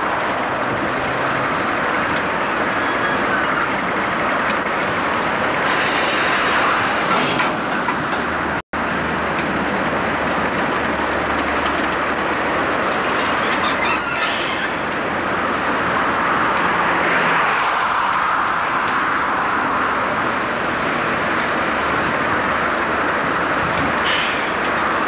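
Two British Rail Class 37 diesel locomotives with English Electric V12 engines idling, a loud, steady engine noise. The sound cuts out for an instant about nine seconds in.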